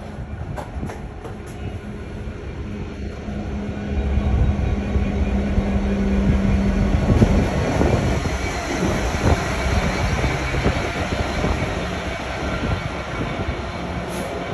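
GB Railfreight Class 66 diesel locomotive, its EMD two-stroke V12 engine running with a steady low note as it approaches and passes close beneath. It gets louder about four seconds in and is loudest around the middle, with a second Class 66 following.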